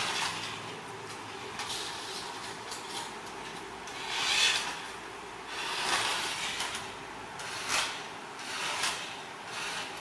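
Remote-control toy car whirring across a tiled floor in several short bursts, a rushing hiss with no clear tone.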